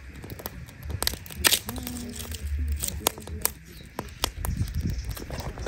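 Dry firewood sticks being snapped by hand: a string of sharp, irregular cracks, the loudest about one and a half seconds in.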